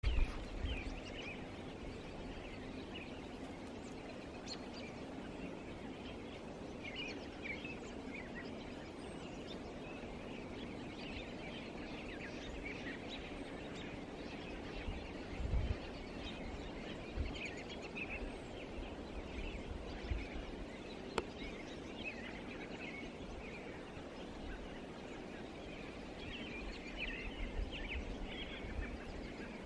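Birds chirping, many short high calls scattered throughout over a steady low background rumble, with a few brief low thumps and one sharp click.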